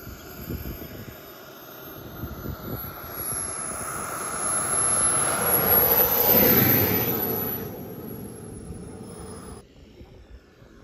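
Radio-controlled model airplane's motor running as it comes in low over the runway: it grows louder on the approach, is loudest as the plane passes close about six seconds in, then fades away. A thin high whine runs over it, and the sound cuts off abruptly near the end.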